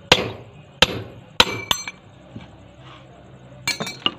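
Hand hammer striking a steel chisel held against an iron sickle blade, four ringing metal blows in the first two seconds, then a few lighter metal clinks near the end as the hammer and tools are set down.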